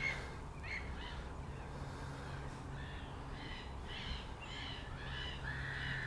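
Distant gulls calling: a scatter of short, faint cries, several overlapping, throughout.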